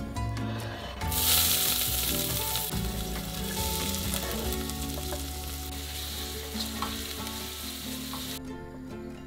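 Diced onion frying in hot olive oil in a stainless steel pot: a sizzle that starts suddenly about a second in as the onion goes in, loudest at first and then easing, while a wooden spatula stirs it. The sizzle cuts off shortly before the end, and soft background music plays underneath.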